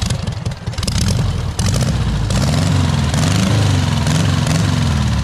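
Homemade dune buggy's engine running as the buggy drives slowly across the yard. It gets louder about two seconds in, and its pitch rises and falls a little with the throttle.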